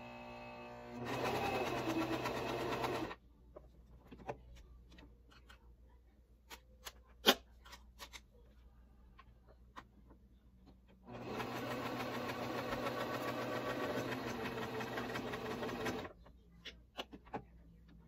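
Singer Tradition household sewing machine sewing a straight stitch through a label on an elastic band, in two runs: about two seconds starting a second in, then about five seconds near the middle to end. Between the runs come light clicks from handling the fabric and machine, with one sharp click about seven seconds in.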